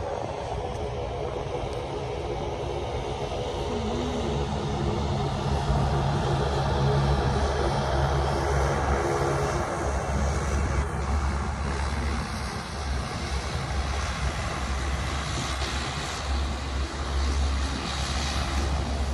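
Airliner engines running on the runway: a steady rumble of jet engines, with a held low tone through the middle. Near the end comes a Saab 340 turboprop taxiing.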